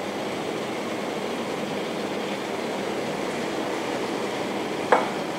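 Steady, even rushing background noise with no speech. Near the end there is a single short clink as a stainless steel bowl is set down.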